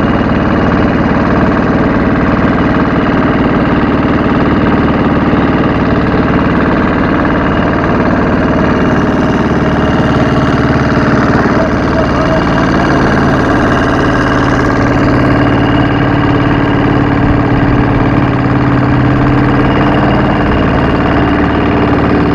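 The engine of a wooden motorboat running steadily while underway, with water rushing along the hull.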